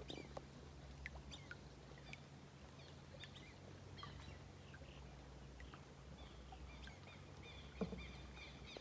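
Very faint open-water ambience: scattered small bird chirps and ticks over a low steady hum, with one soft knock about eight seconds in.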